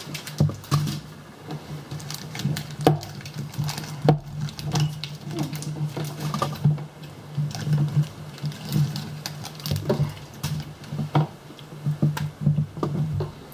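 Candy packaging and small plastic items being handled: irregular clicks and crinkles over a steady low hum.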